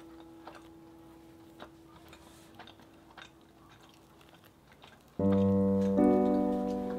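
Background solo piano music: a single held note fades out over a quiet stretch with faint small clicks, then slow, full piano chords come in about five seconds in and change again a second later.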